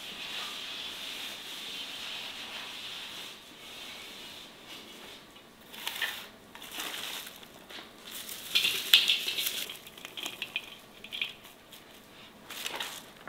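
Sliced raw onion being handled in a cast-iron pot: rustling and soft crunching with light clicks, busiest around the middle, after a steady hiss at the start.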